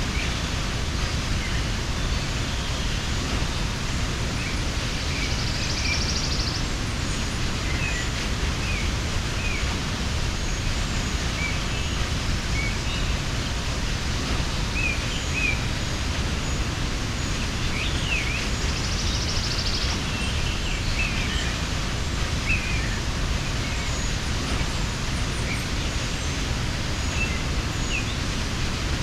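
Steady rushing of a mountain waterfall, with many short bird chirps scattered over it. A brief high buzz comes twice, about six seconds in and again near twenty seconds.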